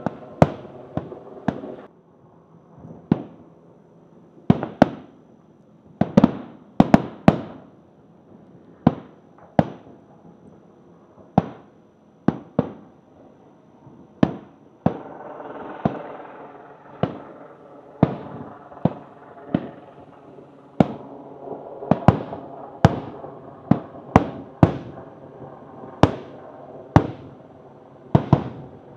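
Aerial fireworks shells bursting, sharp bangs at an irregular pace of about one a second, some in quick pairs and clusters. Each bang trails off in an echo.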